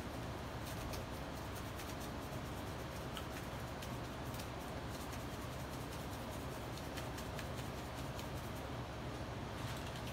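Wet plaster being brushed and smoothed by hand onto a cloth-draped sculpture: faint scratchy dabs and ticks over a steady low hum.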